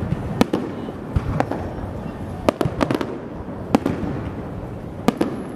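Aerial fireworks shells bursting overhead in an irregular series of sharp bangs, some coming in quick pairs.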